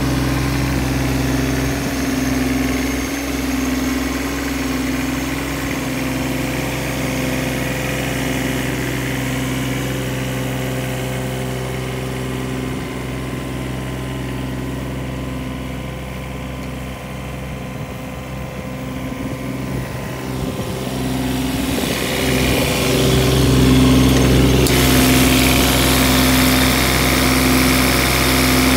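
Kubota KX015-4 mini excavator's small three-cylinder diesel engine idling steadily. It grows louder and clearer over the last few seconds, heard close to the open engine bay.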